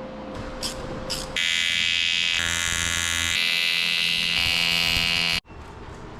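A few light clicks, then a loud electric welding arc buzzes steadily for about four seconds, shifting in pitch a few times before it cuts off suddenly: the sump is being welded into the fuel cell.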